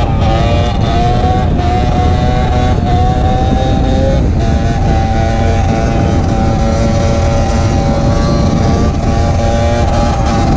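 Yamaha DT125X single-cylinder two-stroke engine running steadily under way, its pitch wavering slightly and dipping briefly about four seconds in.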